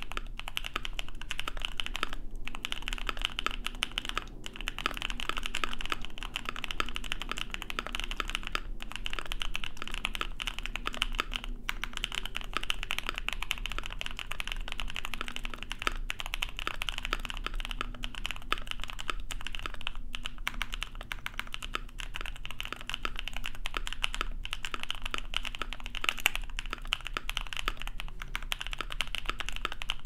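Fast, steady typing on a Tofu65 custom mechanical keyboard with lubed JWK Epsilon switches, aluminium plate, acrylic case, O-ring, tape mod and PCB foam: a dense run of keystroke clicks with a few brief pauses.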